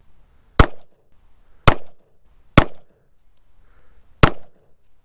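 Four pistol shots from a Glock 26 9mm handgun, fired one at a time about a second apart, each a sharp crack with a short ringing tail.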